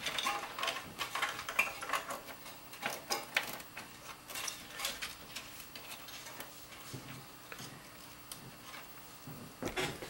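Hands feeding a fan cable and its connector through a cable-routing hole in a metal computer case: rustling, scraping and light clicks of wire and plastic against the metal, busiest in the first half and again near the end.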